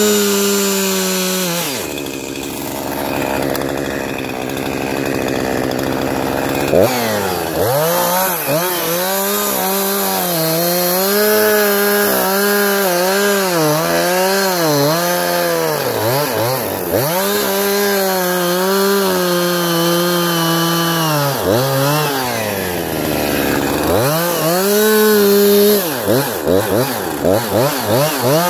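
Two-stroke chainsaw limbing a felled spruce. The engine is held at full revs, drops to idle about two seconds in, then revs back up. Its pitch dips and recovers again and again as it cuts through branches, it drops once more near the end, and it finishes with a series of quick throttle blips.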